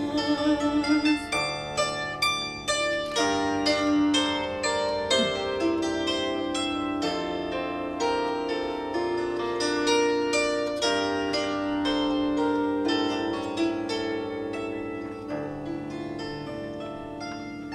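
Bandura played solo: a steady run of plucked notes, its many strings left ringing, with no singing. It grows gradually quieter over the last several seconds.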